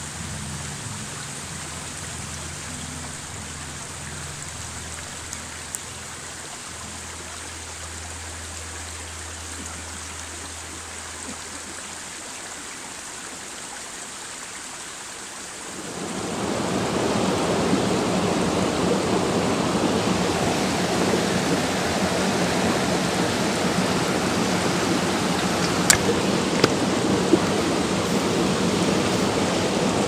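Low, soft background music notes fade away over the first half. About halfway in, a rocky forest stream comes up loud, rushing steadily over boulders, with a few sharp clicks near the end.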